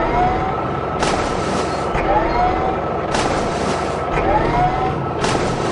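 Looped heavy-vehicle engine sound effect repeating about every two seconds: a steady drone with a hissing burst and a pair of short rising whines in each cycle.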